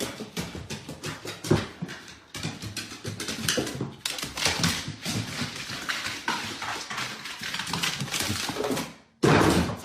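A dog moving about, with a rapid, irregular run of clicks, knocks and scuffs from its paws and claws. Near the end it cuts off and a louder, different sound starts abruptly.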